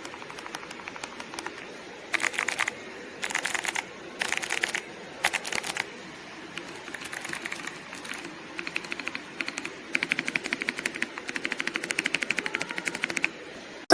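Kailh Box White clicky mechanical keyboard switches pressed rapidly, giving fast runs of sharp clicks: several short bursts, then a longer stretch of quick clicking in the last few seconds.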